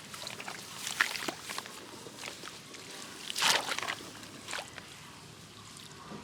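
Shallow water splashing and sloshing in irregular bursts as it is stirred while catching crabs and fish, the loudest splash about three and a half seconds in.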